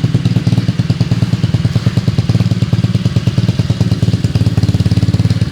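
Tuned Yiying scooter's small engine running steadily at idle, with a fast, even exhaust pulse.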